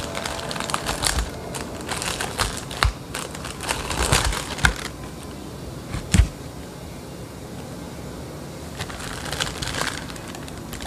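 A food wrapper being crinkled and peeled open by hand: rapid crackles for the first few seconds, one sharp click about six seconds in, a quieter stretch, then more crinkling near the end.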